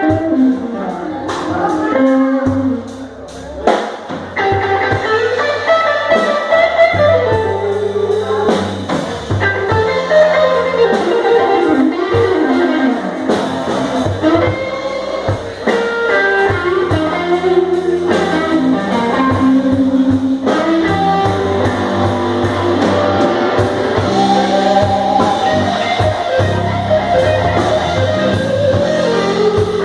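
Live blues band playing: electric guitar melody lines over bass guitar and a drum kit, loud and steady throughout.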